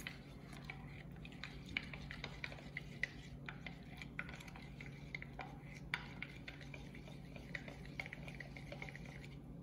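A spoon stirring cornstarch into milk in a glass measuring cup, a quick run of light, irregular clinks and scrapes against the glass as the thickening slurry is mixed smooth.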